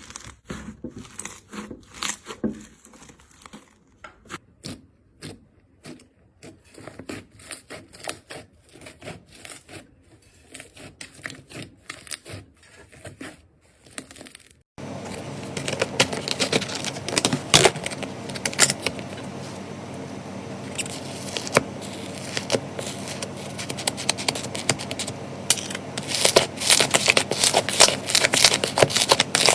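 Slime being pressed and stretched by hand, a run of small crackles and pops. About halfway through the sound switches abruptly to a louder stretch of dense, continuous crackling.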